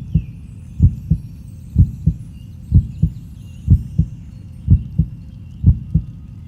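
Heartbeat sound: a steady lub-dub, a strong low thump followed by a softer one, repeating about once a second over a low hum.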